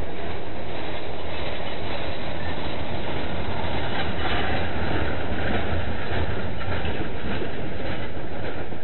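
Norfolk Southern local freight train rolling past at track side: a steady rumble with wheels clacking over the rail joints.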